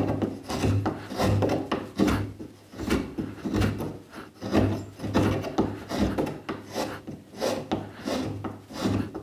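Spokeshave shaving the curved end of a wooden chair leg in a run of short scraping strokes, about one to two a second, refining the curve back to the line.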